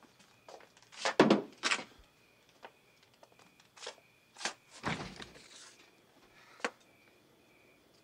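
A series of knocks, thuds and clicks from a door and cupboards being handled in a room. The loudest thuds come about a second in, a scraping thud follows around five seconds, and one sharp click comes near the end.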